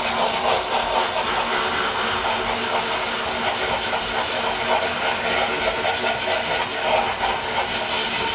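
VH1000 vapor honing (wet blasting) gun spraying a slurry of water and glass bead onto an aluminium cylinder head: a loud, steady hiss with a low hum underneath. It is stripping carbon and old gasket material off the head.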